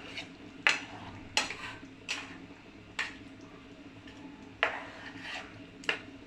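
A cooking spoon stirring a watery spice paste in a pan, knocking against the pan about six times with sharp clinks, over a faint steady low hum.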